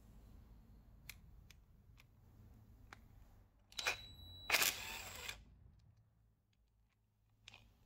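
Cordless drill/driver with a T30 Torx bit undoing a cover bolt on a Honda K-series VTC timing gear: a few light clicks as the bit is set on the bolt head, then about four seconds in a short run of about a second and a half, a high whine followed by a louder, rougher burst as the bolt turns.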